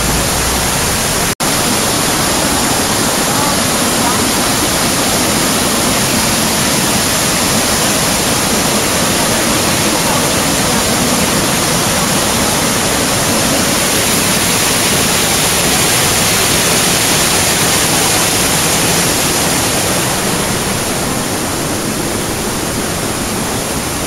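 Mountain stream water rushing and splashing over boulders, loud and steady, with a split-second dropout about a second and a half in.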